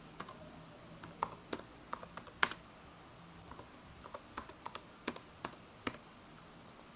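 Computer keyboard typing: irregular key clicks, a few a second with short pauses, as a line of text is typed.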